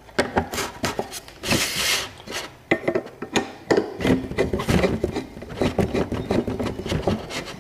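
Hand screwdriver turning out the screws that hold a ceiling fan's mounting bracket, with metal clicking and scraping against the plastic housing and a brief rasp about a second and a half in.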